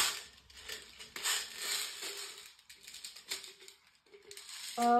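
Plastic airsoft BBs rattling and clicking while an airsoft BB speedloader is refilled: a sharp click at the start, then a few short, faint rattles.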